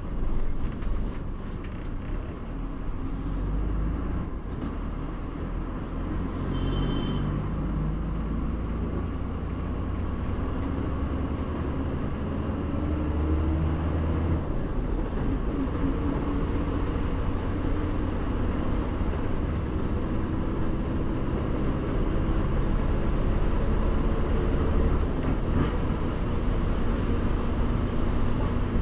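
Bus under way: a low engine rumble and road noise, with the engine pitch rising several times as it pulls away through the gears. A brief high beep about seven seconds in.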